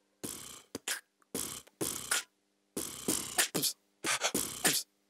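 A young boy's solo vocal beatboxing: short, punchy mouth-made kick, snare and hi-hat sounds with clean silences between them, and no backing music. A faint steady low hum runs under the beats.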